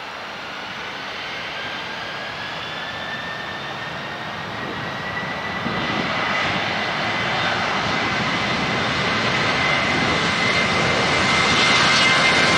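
Southwest Boeing 737-800's CFM56 jet engines spooling up for the takeoff roll: a rising whine over a steady jet rush that grows louder as the airliner accelerates toward the listener.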